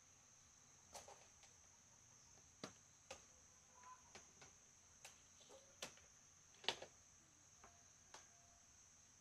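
Faint scattered clicks and taps of a plastic power strip and extension cord being handled and set down on a plastic crate, over a steady, high insect buzz.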